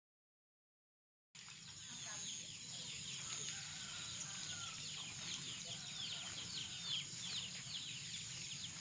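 Silence for about a second, then many small birds chirping, rapid short falling calls, over a steady high-pitched whine and a faint low hum.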